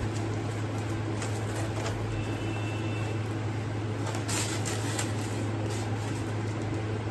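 Cardboard box flaps and white packing paper being handled and rustled as a shipping parcel is opened, with the loudest rustle about four seconds in. A steady low hum runs underneath.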